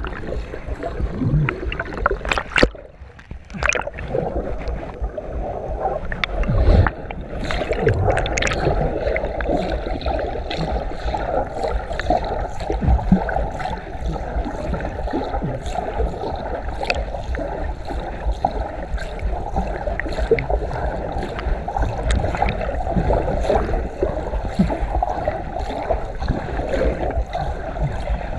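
Muffled water sloshing and gurgling around someone wading through a river: a steady rush with many small knocks and a few louder splashes in the first several seconds.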